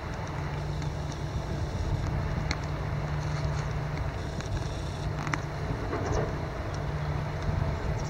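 Flowing river water running steadily as a low rumble with a hiss over it, with a few faint clicks.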